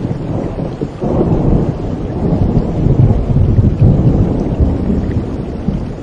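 Heavy rain falling, with a roll of thunder that swells suddenly about a second in and rumbles on deep and loud through the middle before easing slightly.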